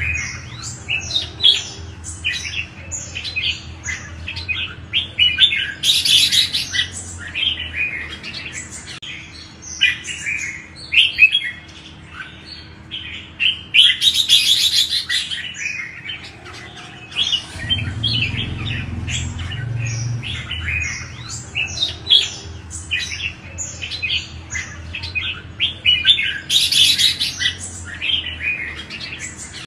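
Red-whiskered bulbuls singing: a continuous run of quick chirping, warbling notes, with three louder, denser outbursts about six, fourteen and twenty-seven seconds in.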